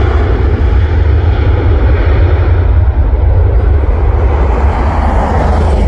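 Boeing 737-800's CFM56-7B jet engines at takeoff thrust during the takeoff roll: a loud, steady jet rumble and roar whose high hiss fades as the airliner moves away.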